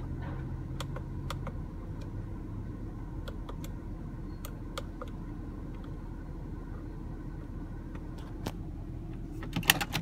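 Porsche Cayenne engine idling steadily, heard inside the cabin, with scattered light clicks of the steering-column menu buttons being pressed. Near the end comes a burst of louder clicks as the ignition key is turned off.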